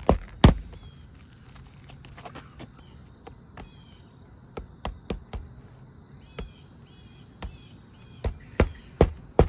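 Hammer driving roofing nails into a replacement asphalt shingle. There is one hard strike just after the start, light taps through the middle, then a run of four strikes near the end, about two or three a second. Birds chirp in the background.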